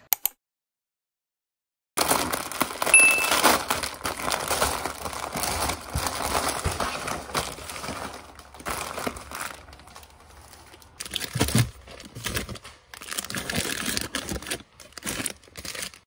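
Soft plastic film packs of baby wet wipes crinkling and rustling as they are handled and stacked, starting about two seconds in and going on in irregular bursts with short pauses.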